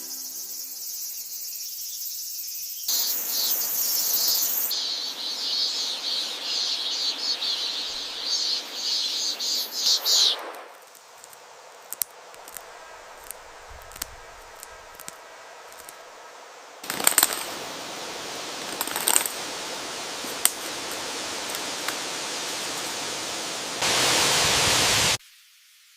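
Jungle nature sound effects laid back to back in abrupt segments: a high hiss, then a loud fluttering, rushing noise for several seconds, a quieter stretch with scattered sharp clicks, more rushing noise with clicks, and a short, very loud burst of noise near the end that cuts off suddenly.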